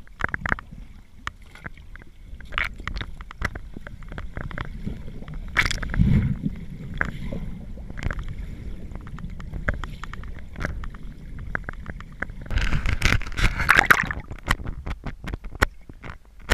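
River water heard from underwater: a low rumble of flowing water with many small clicks and knocks, and a louder rush of water about three-quarters of the way through.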